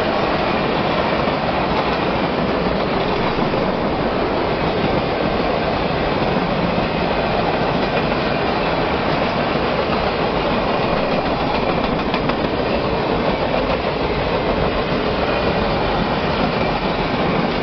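Passenger train cars passing close by at speed: a loud, steady noise of steel wheels running on the rails.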